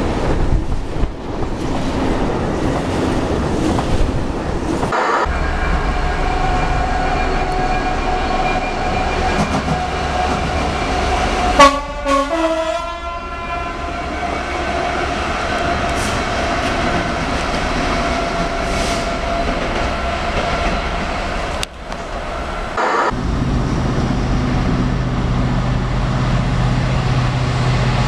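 Freight trains passing at speed, wheels rumbling and clattering over the rails, with a short loud train horn blast falling in pitch about twelve seconds in. Near the end, a Class 66 diesel-electric locomotive approaches hauling tank wagons, its engine running with a steady low hum.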